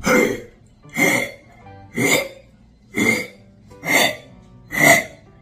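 A wet, phlegmy cough repeated six times, about once a second, with phlegm gurgling in it: the kind of cough that can mean bronchial inflammation or pneumonia.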